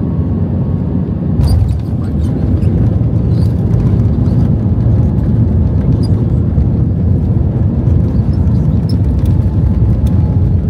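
Airbus A320 touching down hard, heard from inside the cabin: a thump about a second and a half in, then a loud steady rumble of the rollout on the runway, with scattered rattles and clicks from the cabin.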